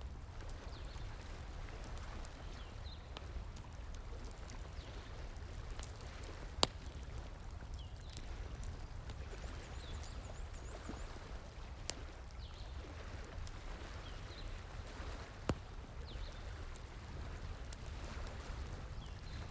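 Wood fire crackling with scattered small ticks and three sharp pops, over a steady rush of flowing stream water.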